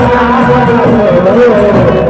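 Rajasthani Gair folk music: a wavering sung melody over drums, with a steady beat of high percussion strokes about four times a second.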